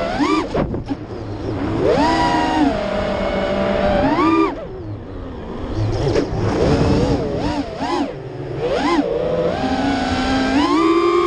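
FPV quadcopter on an Armattan Chameleon Ti frame: its brushless motors and propellers whine, the pitch swooping up and down with every throttle change. The sound drops back briefly about four and a half and eight and a half seconds in, where the throttle is eased off, then climbs again.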